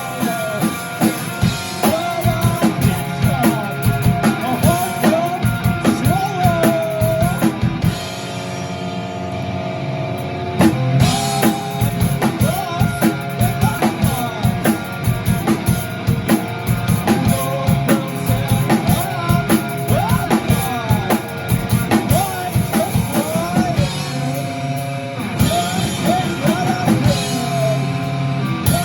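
Rock band playing a song with drum kit, guitar and singing. About eight seconds in the drums drop out for a couple of seconds under held chords, then come back in.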